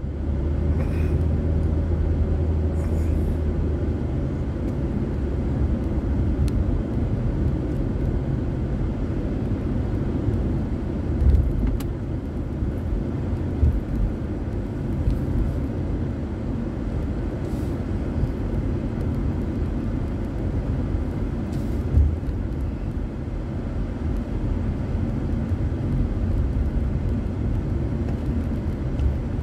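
Road noise inside a moving car's cabin: a steady low rumble of engine and tyres. Two brief louder thumps come about eleven and twenty-two seconds in.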